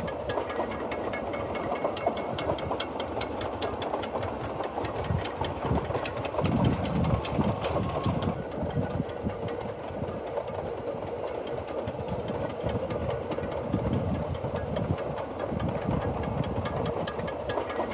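Narrow-gauge steam locomotive working hard with a train, its exhaust beats chuffing in a rapid steady rhythm over the rattle of the running gear.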